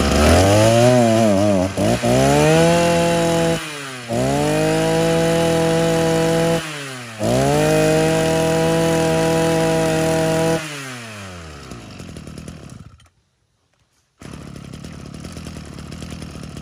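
Maruyama MB3030 brush cutter's 30cc two-stroke engine revved hard four times, each burst held for one to three seconds and then dropped as the throttle is released. After the last burst it winds down and goes quiet, and a quieter steady noise follows near the end.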